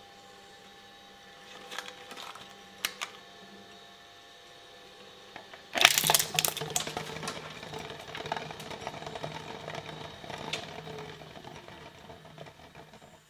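A shredder running with a steady hum and a few sharp clicks, then about six seconds in an object is caught by the blades and crunched and crackled apart, loud at first and slowly fading while the motor hum drops lower under the load.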